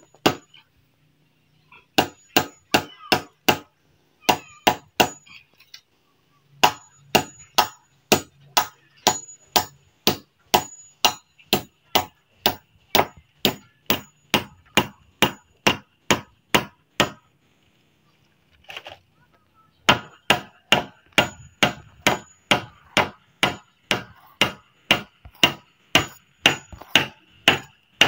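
Steady hammering: a hammer striking over and over, about two to three blows a second in long runs. There are short breaks, and a pause of a couple of seconds about two-thirds of the way through.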